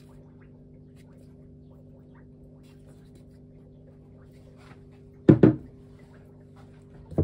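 A Mazda RX-8 rotary-engine rotor handled by hand, with faint ticks and taps as it is turned over a steady low hum. About five seconds in come two heavy knocks in quick succession as the rotor is set down on the bench, and another knock near the end.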